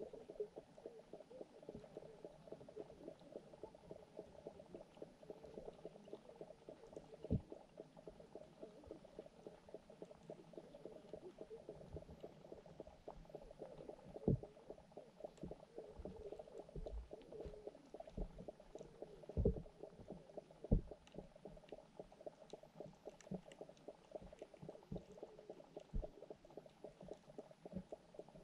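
Faint underwater sound of a pond recorded through a submerged camera: a steady low gurgling murmur of water. A few dull low knocks stand out, the loudest near the middle.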